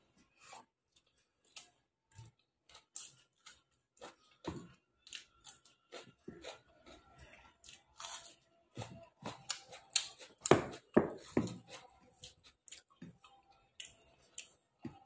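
Close-up eating sounds: a person chewing and smacking mouthfuls of mutton biryani, irregular short wet clicks and crunches. They grow busier and louder about nine seconds in, then ease off near the end.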